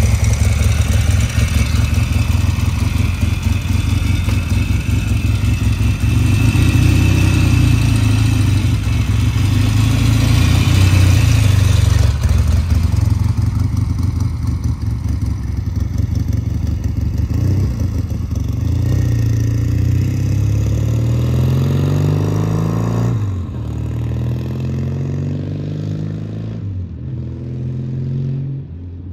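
1975 Norton Commando 850's 828cc parallel-twin engine running close by, then the motorcycle pulls away and accelerates through the gears. The pitch climbs, drops back at a shift about two-thirds of the way in and again near the end, and fades as the bike rides off.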